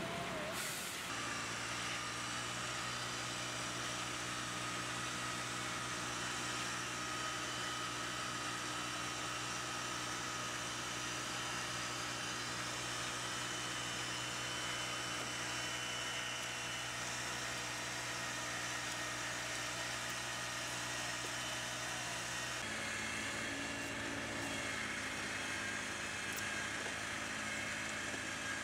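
Small petrol engine of a roller concrete screed running at steady speed. Its tone shifts suddenly about 23 seconds in.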